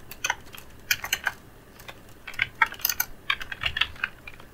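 Computer keyboard typing: irregular bursts of keystroke clicks, with a short pause about a second and a half in.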